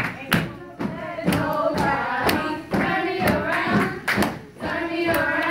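A group of women chanting in unison, a sorority chant, with a sharp beat of stomps and claps about twice a second.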